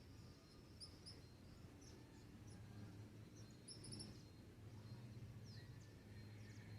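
Faint dawn birdsong: scattered short, high chirps, with a quick run of them just before the middle and a falling whistle later on, over a steady low rumble and a thin, steady high tone.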